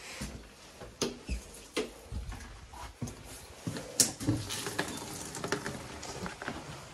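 Scattered small clicks, knocks and rustles of someone moving about and handling the latch of a glass door, the sharpest click about four seconds in.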